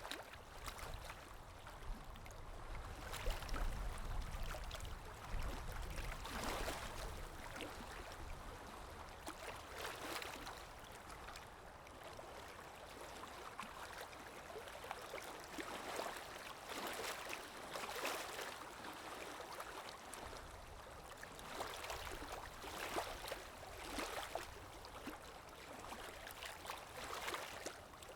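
Canaries bathing in a shallow water dish, splashing the water with their wings in repeated short bouts.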